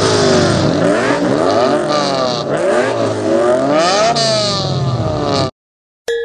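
Several race car engines revving at once, their pitch rising and falling over one another, cutting off abruptly about five and a half seconds in.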